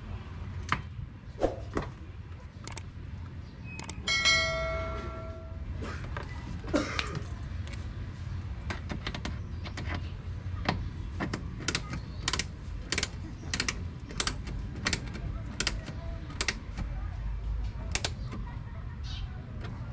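Ratchet screwdriver clicking as it drives screws fixing a plastic mud guard to the wheel-arch flare. The clicks come in a steady run of about two a second through the second half, after a few scattered clicks. A short pitched tone sounds about four seconds in.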